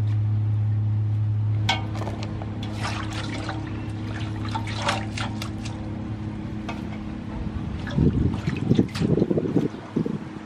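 Chili leaves and herbs being swished and rinsed by hand in a metal basin of water, with splashing and dripping, over a steady low hum that drops in level about two seconds in. Several dull knocks near the end.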